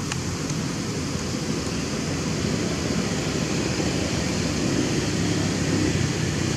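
Steady outdoor background noise: a low rumble with a fainter hiss above it, with no distinct calls or knocks.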